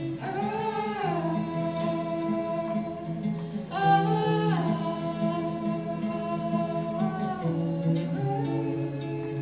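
Acoustic guitar playing a repeating pattern of notes under singing in long held notes, each one gliding down in pitch before it settles; a new note starts near the middle and another near the end.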